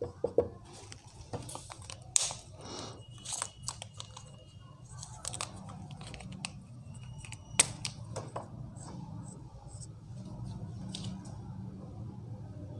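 Marker pen scratching and squeaking on a whiteboard in short strokes as words are written, with a few sharp taps of the pen. A low steady hum runs underneath.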